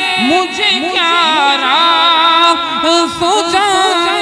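A man's voice singing an Urdu devotional song through a microphone, holding long notes with wavering ornaments and slides between words.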